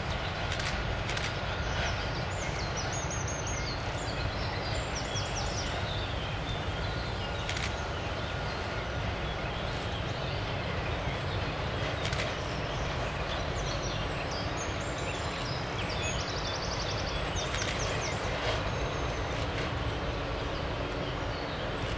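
Distant steady rumble of a regional railcar running across a steel girder bridge, with small birds chirping over it throughout.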